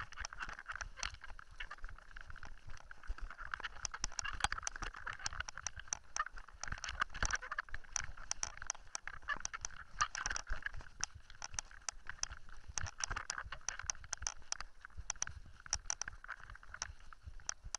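Mountain bike rolling over a loose gravel dirt track: tyres crunching over stones and the bike rattling, with frequent sharp clicks and knocks.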